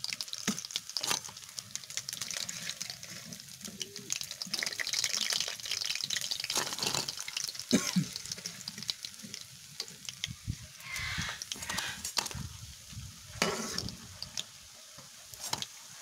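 Hot oil sizzling and crackling as batter fritters fry, with scattered sharp clicks and a few louder knocks; the sizzle thins out toward the end.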